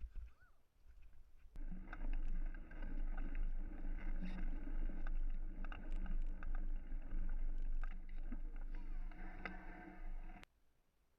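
A mountain bike rolling along a dirt trail: a steady rush of wind and tyre noise with scattered rattles and knocks from the bike. It starts abruptly a couple of seconds in and cuts off abruptly near the end.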